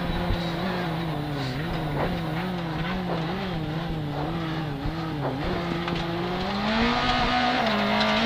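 Corsa kit car's Bill Falconer Engineering engine heard from inside the cabin. Through a tight left-right bale chicane the revs drop and waver with quick on-off throttle. They then climb steadily on acceleration, with a brief dip near the end.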